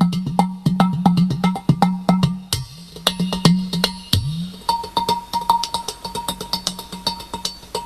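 Udu clay pot drum played with fast, dense hand and finger strikes over its deep, ringing bass tone, with one low note bending upward about four seconds in.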